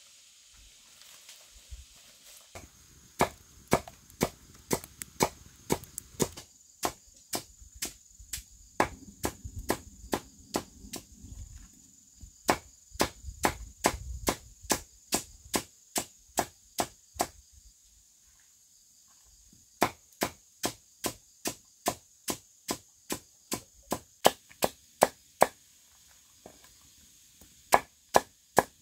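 A knife chopping against a wooden board in steady, even strokes about two a second. The chopping comes in three runs, with two short pauses in the second half.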